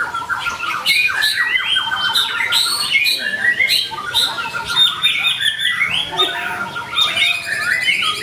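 White-rumped shama (murai batu) singing without pause. It gives a fast, varied stream of whistled phrases, gliding notes and rapid trills mixed with harsh chattering notes.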